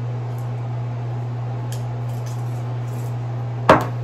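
Drinking from a glass, with faint swallowing clicks over a steady low hum. Near the end there is one loud, sharp knock as the glass is set down on the table.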